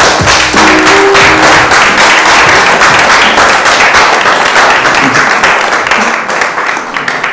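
Audience applauding, dense clapping over music, fading near the end.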